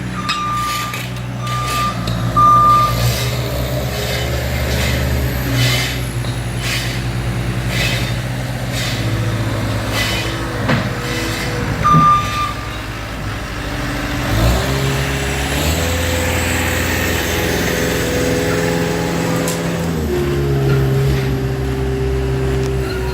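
Heavy diesel construction vehicle running, with its reversing alarm giving about three beeps near the start and one more about halfway. The engine revs up about two-thirds through, holds higher for several seconds, then settles back down.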